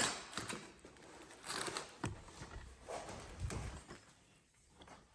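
Handling noises: a sharp click at the start, then scattered light clicks, knocks and rustles that fade quieter near the end.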